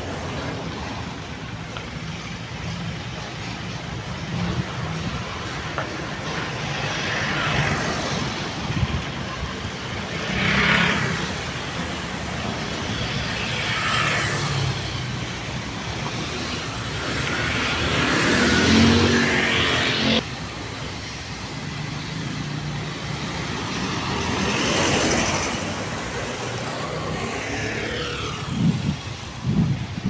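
Road traffic: cars and motorcycles going past one after another over a steady rumble, each swelling and fading, the loudest about two-thirds of the way through. A few low thumps near the end.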